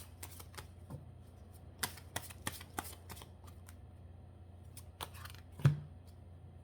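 Tarot cards being handled on a table: a scatter of light card flicks and taps, a quick run of them about two seconds in and a sharper knock near the end as a card is set down, over a steady low hum.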